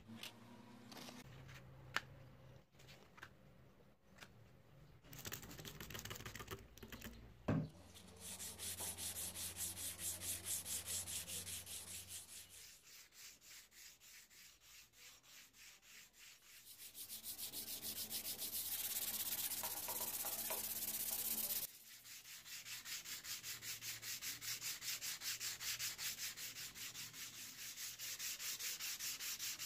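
Steel axe head being hand-sanded with P400 silicon carbide sandpaper: rapid, rhythmic back-and-forth rubbing strokes, about three a second. They are preceded by a few clicks of handling and a sharp knock about eight seconds in.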